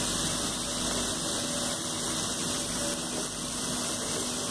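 A steady mechanical hum with a hiss over it, holding level, with a faint low drone.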